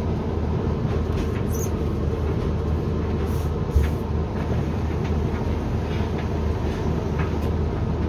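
Hoover washer-dryer drum turning on a drying cycle, tumbling the laundry with a steady rumble and hum. A single thump about halfway through, as the load drops inside the drum.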